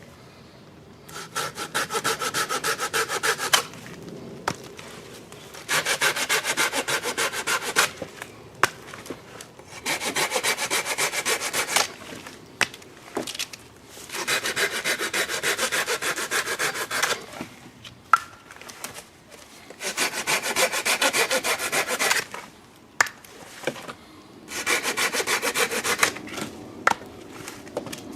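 Silky Gomtaro 210 mm pull-cut handsaw sawing through wood in quick strokes. The sawing comes in bouts of two to three seconds with short pauses between, about six times over.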